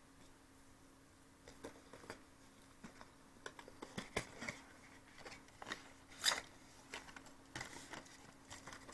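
Small cardboard box being opened by hand: faint scattered clicks, scrapes and rustles of card flaps and an inner cardboard tray sliding out, starting about a second and a half in, with one louder click about two-thirds of the way through.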